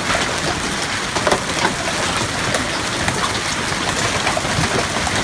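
Hailstones pelting down on pavement, lawn and a parked car in a hailstorm. A dense steady hiss of impacts, with sharp individual cracks scattered throughout.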